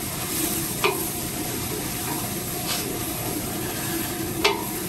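Mushrooms and tomato paste sizzling steadily in olive oil in a stainless steel stockpot while a spatula stirs them. The spatula knocks or scrapes against the pot three times, about every two seconds.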